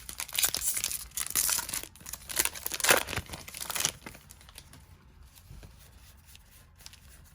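A foil Yu-Gi-Oh booster pack being torn open and crinkled: a run of ripping and crackling for about four seconds, then only faint handling.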